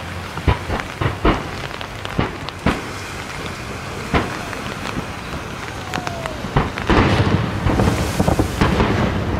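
Fireworks going off: separate sharp bangs every second or so, then from about seven seconds in a dense, rapid crackle of many bursts at once.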